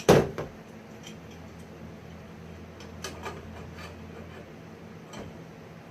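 One sharp knock right at the start, then a few light clicks and taps spread through the rest: BMX bike parts being handled and fitted during assembly.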